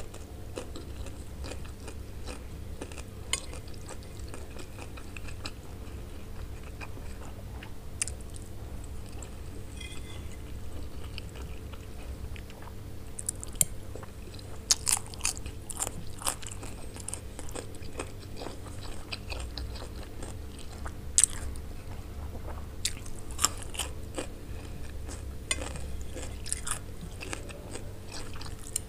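Close-miked eating: crisp crunches of biting into fresh cucumber slices and chewing roasted pasta, scattered sharp bites over a steady low hum.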